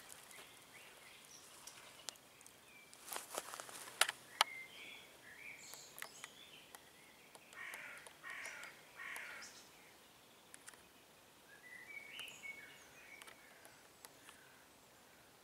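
Wild birds calling in woodland: scattered short chirps, and three rough calls in a row about eight seconds in. A few sharp clicks or snaps come about three to four seconds in.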